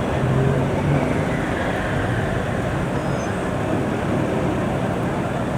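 Steady vehicle and traffic noise, a dense even rumble with a low hum.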